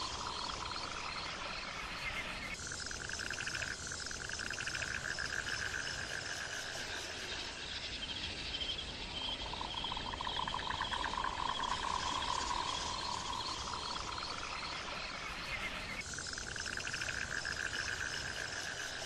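Chorus of trilling frogs and insects: several steady, rapidly pulsing calls at different pitches overlap, with the loudest call changing pitch every few seconds.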